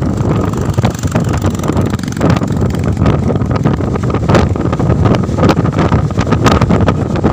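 Strong wind buffeting the microphone, a loud, uneven low rumble with gusts and crackling pops.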